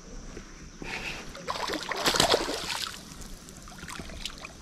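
Water splashing and sloshing as a hooked fish thrashes at the surface during the fight, loudest around two seconds in.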